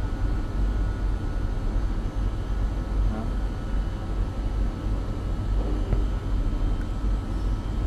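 Steady low rumble of machine-shop background noise, with a faint steady whine above it.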